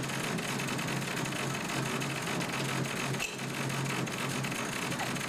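Diesel engine of a heavy-haulage lorry running steadily as it moves a low-loader trailer.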